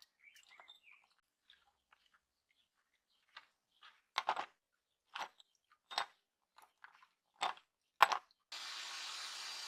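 Hand work on metal parts: light clicks and handling, then five short, sharp scraping strokes about a second apart. A steady motor with a high whine starts near the end, typical of a power tool being switched on.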